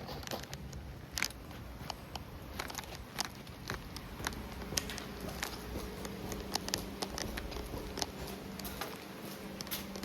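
Scattered light clicks and taps, irregular and a second or so apart, of tools and steel tubing being handled, over a steady low hum.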